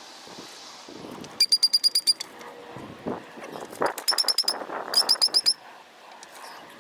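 A bird calling in three quick runs of high chirps, about ten a second, with faint handling and shuffling noise between the runs.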